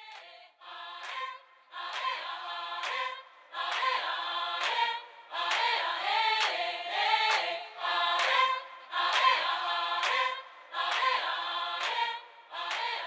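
An a cappella vocal ensemble singing an introduction in short phrases of about a second, each with a crisp start and separated by brief gaps, with no instruments.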